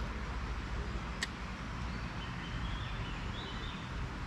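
Steady outdoor background noise with a deep rumble, a single sharp click about a second in, and a few faint bird chirps a little past halfway.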